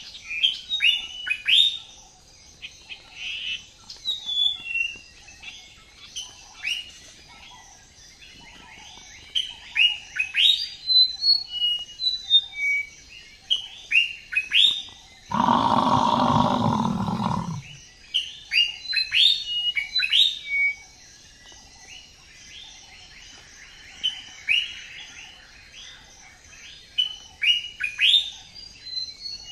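Many birds chirping and whistling in quick, sharply falling notes. About halfway through, a loud, low, drawn-out call lasts about two and a half seconds.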